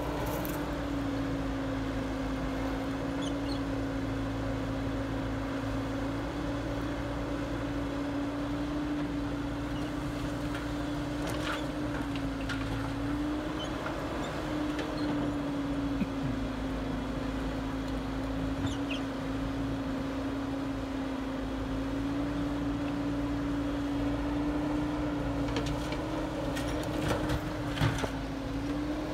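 Caterpillar excavator's diesel engine running steadily under hydraulic load, its pitch dipping and recovering slightly as the arm works. There are a few knocks near the end as the bucket drops soil into a dump truck bed.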